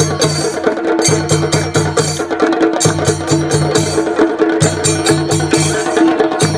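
Kerala chenda drums played by an ensemble in rapid strokes, coming in bursts of about a second that repeat about every two seconds.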